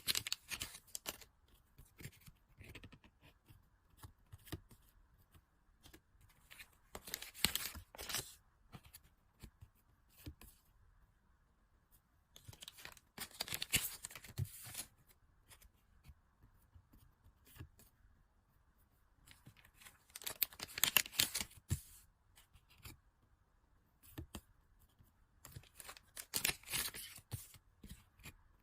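Packaging being handled and opened by hand: wrappers crinkling, rustling and tearing in five short bursts about six seconds apart.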